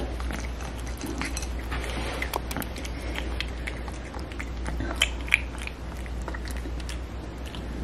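A kitten eating from a plate, its chewing heard close up as many small, irregular crisp clicks, over a steady low hum.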